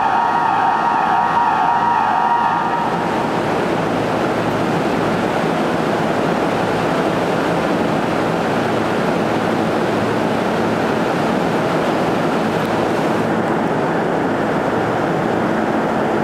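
Subway station emergency alarm buzzer sounding a steady pitched tone that cuts off about three seconds in, leaving a steady rushing noise.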